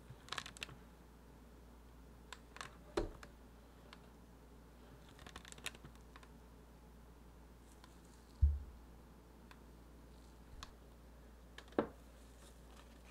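Scattered light clicks and knocks of kitchen things being handled, with one dull thump about eight seconds in. No mixer motor is running.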